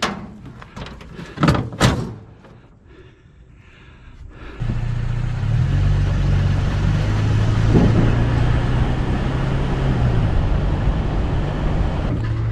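Two knocks, then about four and a half seconds in a vehicle engine comes in suddenly and runs with a steady low hum, its pitch shifting slightly now and then.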